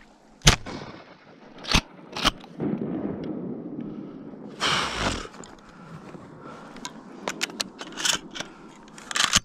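A shotgun fires once about half a second in, at a wounded duck swimming on the water, followed by two sharp clacks of the gun's action. A short rush of noise comes near the middle, with small clicks and knocks after it.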